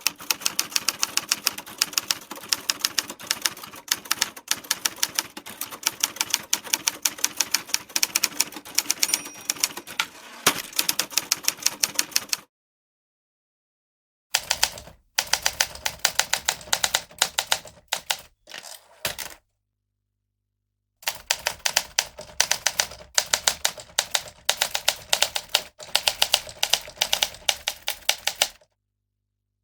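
Typewriter keys being typed fast, a rapid string of clacks several to the second. There are three runs with short dead-silent gaps between them, and the second and third runs have less low end than the first.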